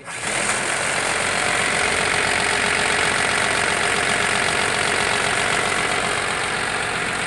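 Toyota 1DZ-II diesel forklift engine idling steadily just after starting, run as a check after its air filter was cleaned and refitted.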